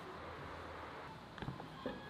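A few light knocks from a knife and eggplants being handled on a wooden cutting board: a quick pair about a second and a half in and one more near the end, over faint room noise.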